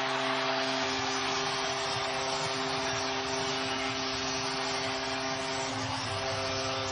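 Arena goal horn sounding one long, steady chord over a cheering crowd, signalling a home-team goal.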